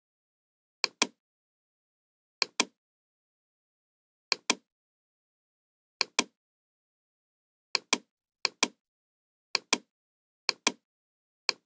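Computer mouse clicking: about nine clicks spaced a second or two apart, each heard as a quick pair of sharp ticks, with dead silence between them.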